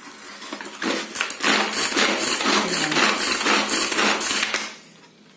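Pull-cord manual food chopper being pulled over and over, its blades spinning and clattering through onion pieces inside the plastic bowl. The rattling builds over the first second or so, runs steadily, and stops shortly before the end.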